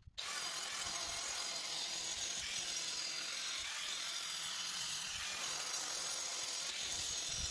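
Angle grinder cutting a groove into an old floor of rammed crushed stone: a steady grinding hiss that starts abruptly just after the start and holds level throughout.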